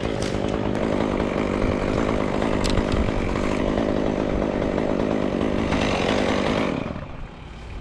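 Chainsaw running steadily at a constant engine pitch, then falling away sharply near the end.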